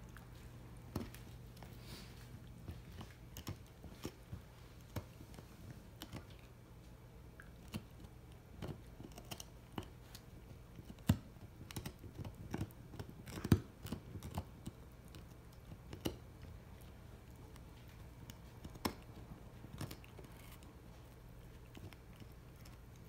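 Small Shichon dog gnawing a hard bone chew treat: irregular crunching and clicking of teeth on the treat, with a few louder cracks around the middle.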